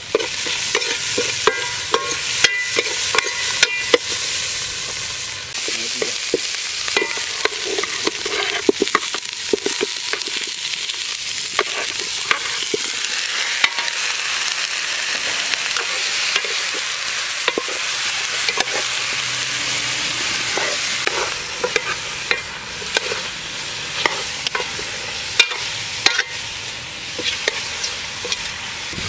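Red chili paste sizzling in a large aluminium pot as a metal ladle stirs and scrapes it, the ladle clinking against the pot many times over a steady frying hiss.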